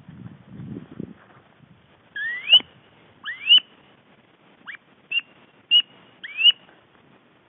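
Wood duck squeals: six loud, rising whistled 'wheeek' calls, two of them long and the rest short, with a low rustle in the first second.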